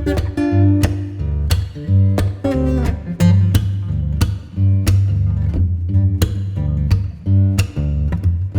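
Background music led by plucked guitar over a steady bass line, the notes picked in a regular rhythm.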